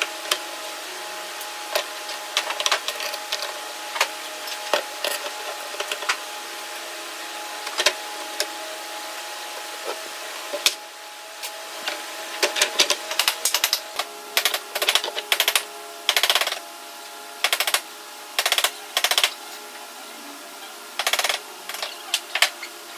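Clamps and wooden boards being handled on a workbench: scattered knocks and clicks, then from about halfway through, several bursts of rapid rattling clicks. A steady hum runs underneath.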